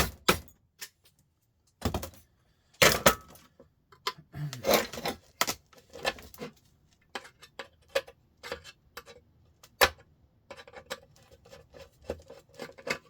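Screwdriver and metal parts of a sandwich maker clicking, knocking and scraping irregularly as the appliance is taken apart.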